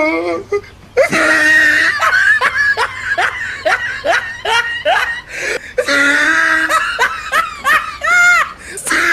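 Loud laughter in rapid repeated bursts, after a short break about a second in.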